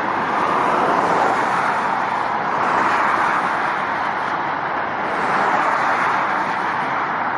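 Steady motorway traffic noise: the hiss of car tyres on the road, swelling gently now and then as cars pass.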